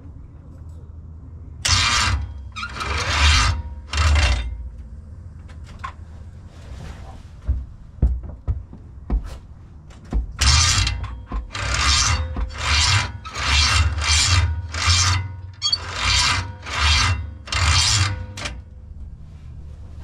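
A series of short, loud rasping strokes: three about two to four seconds in, then about nine in quick succession from about ten seconds to near the end.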